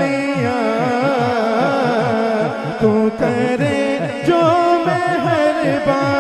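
A man sings an Urdu hamd (devotional praise) in a sustained, ornamented melody into a microphone, over a held low backing tone and a steady low beat of about four thumps a second.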